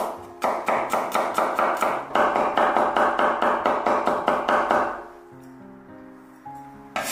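Chinese cleaver rapidly chopping garlic cloves into mince on a wooden cutting board, about five or six strokes a second, stopping about five seconds in. Soft background music with a simple melody runs under the chopping and carries on alone afterwards.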